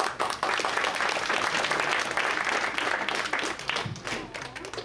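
Audience applauding: many hands clapping, starting suddenly, holding steady for about three seconds and then dying away near the end.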